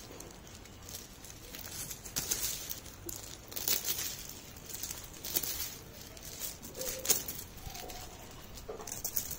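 Irregular rustling and sharp taps from a nylon cast net being handled on gravel, with small caught fish flapping in the mesh; a handful of louder taps come a second or two apart.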